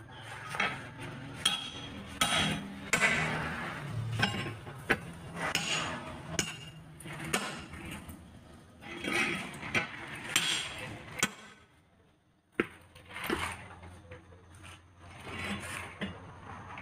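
Steel tire irons knocking and scraping against a truck tire and its steel rim while the bead is levered by hand: irregular sharp metal clinks and knocks, with a brief lull about twelve seconds in.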